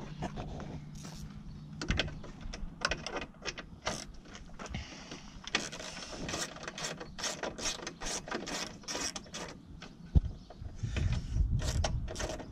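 Hand ratchet with an extension clicking in quick runs as it turns a headlight mounting bolt, with one sharper knock near the end.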